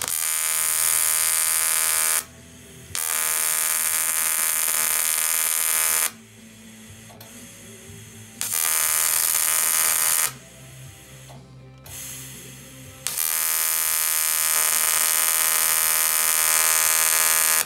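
AC TIG welding arc buzzing as it melts filler rod into corrosion pinholes in an aluminium boat hull. It comes in four bursts of about two to five seconds, each switching on and off abruptly, with short pauses between.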